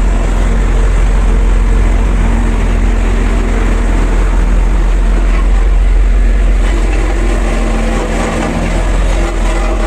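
Road roller's engine running steadily with a strong low rumble, easing off slightly about eight seconds in.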